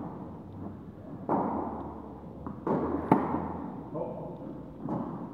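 Tennis rally: about five tennis-ball impacts off rackets and the court, each followed by the echo of a large indoor hall, the sharpest and loudest about three seconds in.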